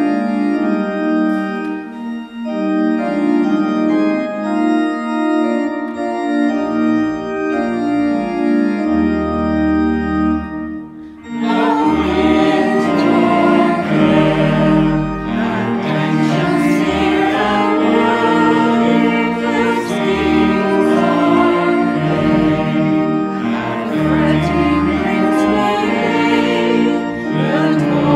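Church organ playing sustained chords with deep pedal notes, alone at first. About eleven seconds in, a virtual choir of separately recorded voices comes in singing a hymn over the organ, with a cello bowing along.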